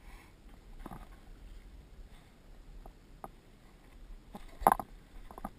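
Scattered light knocks and clicks aboard a sailboat under way, over a low steady rumble, with a louder short clatter about three-quarters of the way through.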